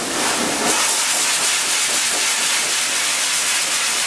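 High-velocity pet force dryer blowing air through its hose and nozzle into a dog's coat: a loud, steady rushing hiss.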